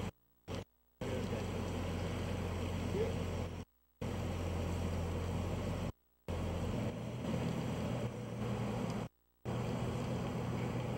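Floodwater rushing steadily over rocks and a washed-out road, with a heavy low rumble, broken by several abrupt silent gaps of a fraction of a second.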